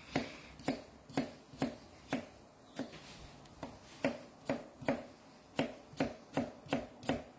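Kitchen knife dicing a peeled ripe mango on a chopping board: a steady run of sharp taps, about two a second.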